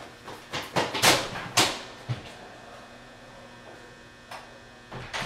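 Low steady electrical room hum, with a few short rushing noises in the first two seconds.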